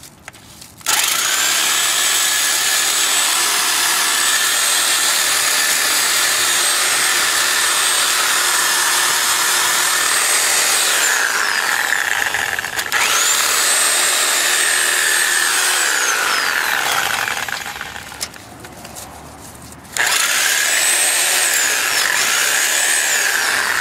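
Reciprocating saw (Sawzall) cutting steel fence cable, its motor running with a high steady whine. Its pitch sags for a couple of seconds near the middle, then it picks up again, winds down, stops for about two seconds, and starts again.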